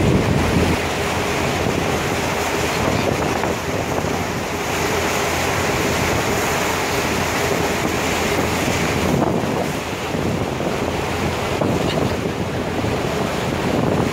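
Steady rush of wind buffeting the microphone over the churning, splashing wake of a moving passenger ferry, with a low, steady rumble from the boat underneath.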